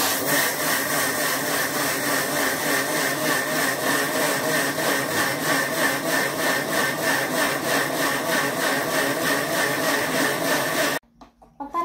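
Electric mixer grinder with a stainless-steel jar running, grinding soaked rice into flour: a loud, steady whirr that starts suddenly and cuts off abruptly near the end.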